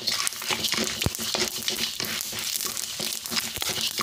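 Dal lentils and dried red chillies crackling and sizzling as they fry in a little oil in a wok, stirred with a wooden spatula that scrapes and knocks against the pan a few times. A faint steady hum runs underneath.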